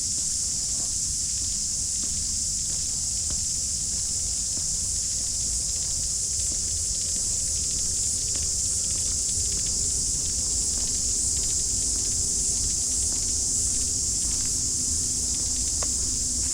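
A steady, high-pitched chorus of summer cicadas, with faint footsteps along the path underneath.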